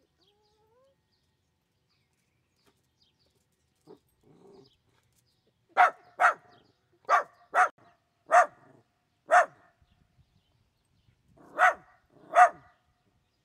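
Wire-haired dachshund barking at a snake: eight sharp barks, some in quick pairs, starting about six seconds in after a quiet stretch.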